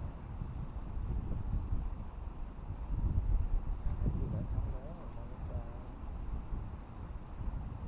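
A cricket chirping in an even, high-pitched pulse, about four chirps a second, over a low uneven rumble of wind on the microphone.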